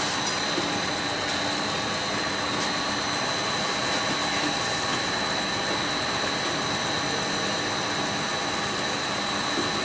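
FTPEG 1000 compound bubble film machine running steadily: a continuous mechanical hum with a steady high-pitched whine over it.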